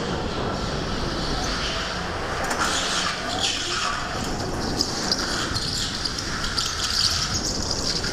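A go-kart running on an indoor track, heard from its onboard camera: a steady rumble with wind noise on the microphone, and tyres hissing and squealing in patches through the corners.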